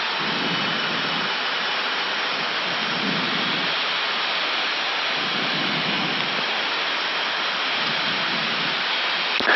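Steady rushing airflow noise in the cockpit of an Airbus A319 descending with thrust at idle.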